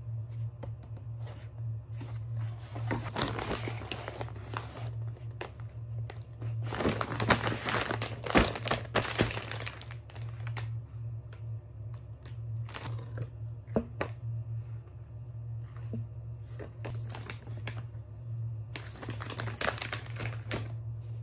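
Plastic food packaging crinkling and rustling as grocery items are handled and set down on a table, with scattered light knocks. The rustling is loudest from about seven to nine and a half seconds in, and again near the end, over a steady low hum.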